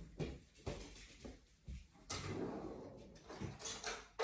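A kitchen drawer being slid open and its contents rummaged through: scattered light knocks and clatters, a longer rattle partway through, and a sharper knock near the end.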